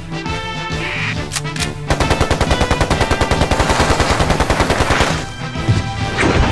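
A rapid, even rattle like machine-gun fire, starting about two seconds in and lasting about three seconds, over cartoon background music.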